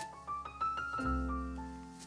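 Background piano music: a rising run of single notes, then a new chord with a low bass note about a second in, fading.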